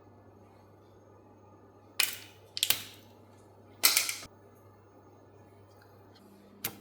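Several sharp clacks of hard objects knocking together: one about two seconds in, a quick double just after, a short clatter around four seconds, and a lighter click near the end, over a faint steady hum.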